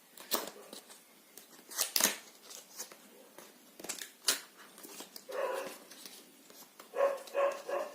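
Handling noise from opening a microphone's retail box: sharp clicks and rustles of cardboard and packaging. An animal's short high-pitched calls come once about five seconds in, then three times in quick succession near the end.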